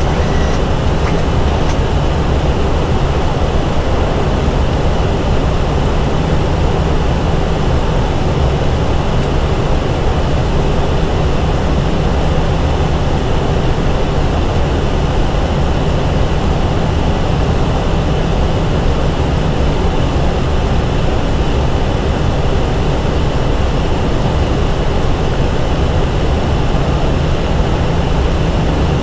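Steady rushing cabin noise of an Airbus A320 flight deck in flight during descent: airflow and air conditioning, even and unbroken, heaviest in the low range.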